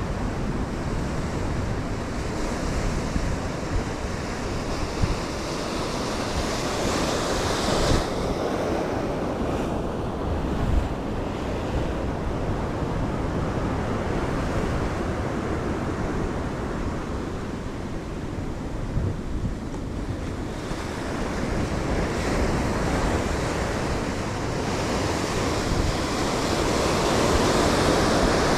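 Sea surf washing against a rocky shore in slow swells, with wind buffeting the microphone.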